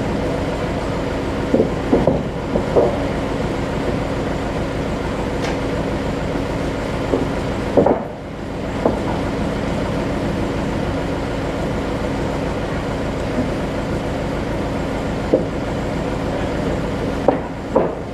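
Sawmill machinery running steadily with a constant hum, broken by several short clanks and knocks.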